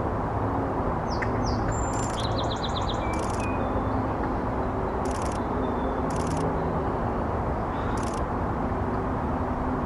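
Small birds calling over a steady low background rumble: two quick down-slurred whistles, then a fast trill about two seconds in, then scattered short single notes. Short buzzy notes recur every second or two.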